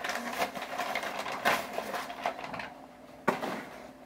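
Parcel packaging rustling and crinkling in quick irregular handfuls as it is pulled open, fading after about two and a half seconds, with one sharp knock near the end.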